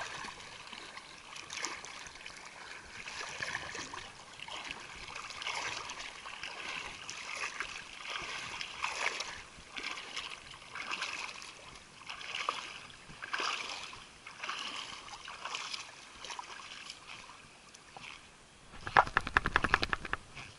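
Legs wading through shallow seawater, sloshing and splashing with each step about once a second. Near the end a louder rapid rattle of clicks breaks in for about a second and a half.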